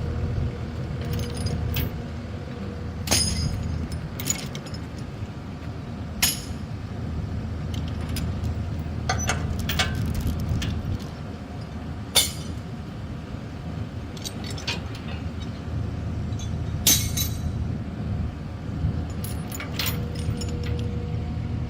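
A vehicle engine running steadily with a low rumble, with a dozen or so sharp metallic clinks scattered through it.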